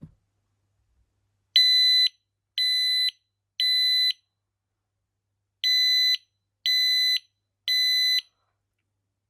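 FireAngel FA6620 optical smoke alarm sounding its test alarm after its test button is pressed: half-second, high-pitched beeps in two groups of three with a pause between, the code-3 (temporal-three) evacuation pattern.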